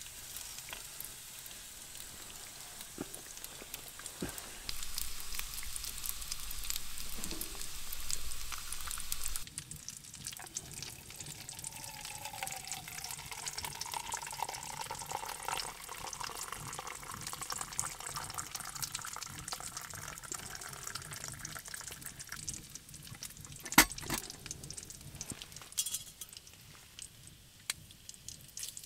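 Bacon and an egg sizzling and crackling in a pan on a wood stove, stopping abruptly about nine seconds in. Then hot water is poured into a metal camp mug, its pitch rising as it fills, with a sharp knock near the end.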